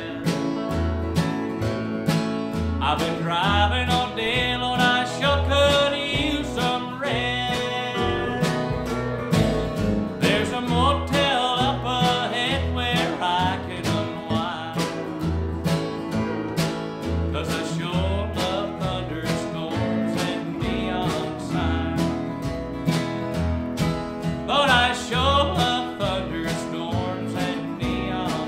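Country music played live: acoustic guitar strumming a steady beat over upright bass notes on the beat, with a melody line bending above.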